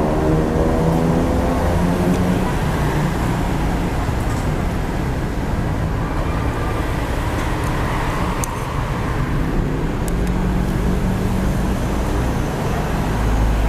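Street traffic passing close by: a steady rumble of road noise, with one vehicle's engine hum fading away in the first couple of seconds and another passing about ten seconds in.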